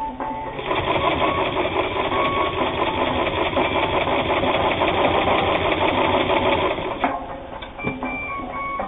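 Japanese-made all-steel-gear sewing machine running steadily as it stitches through eight folded layers of heavy denim; it starts about half a second in and stops suddenly about seven seconds in.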